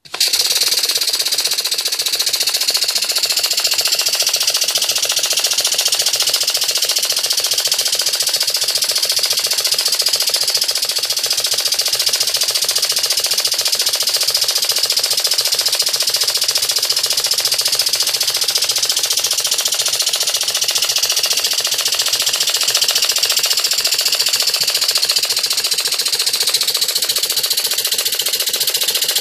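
Scale model of the USS Monitor's twin-cylinder vibrating-lever engine running fast on compressed air. It comes on abruptly, then holds a steady loud hiss of air with a rapid, even mechanical clatter.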